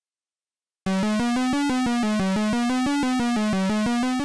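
Chiptune-style synthesizer sound effect standing in for a pixel-art street sweeper's motor: a low, buzzy tone warbling quickly between two pitches, about seven pulses a second. It starts about a second in and fades out near the end.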